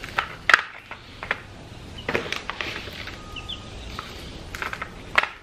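Plastic chick feeder being handled and twisted onto its base: a series of sharp plastic clicks and knocks, loudest about half a second in and again in a quick run near the end.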